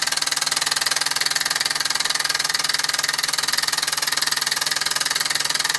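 Mamod SE2 toy stationary steam engine running steadily at speed on superheated steam, a very fast, even chuffing of exhaust over a constant steam hiss.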